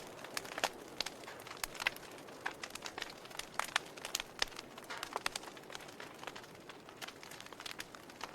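Wood fire crackling: irregular sharp pops and snaps, several a second at times, over a soft steady hiss of burning.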